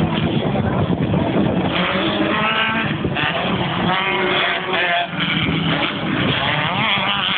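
Off-road race vehicle engines revving, their pitch rising and falling several times.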